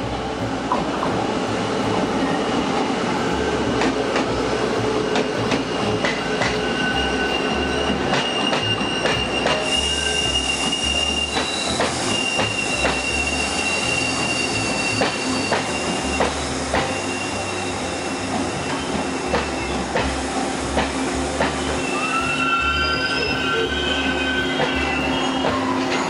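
TRA E1000 push-pull Tze-Chiang electric train pulling into a station platform: a steady rolling rumble with wheels clicking over rail joints. High, thin wheel squeals come in as it slows, one held through the middle and more near the end, one of them rising.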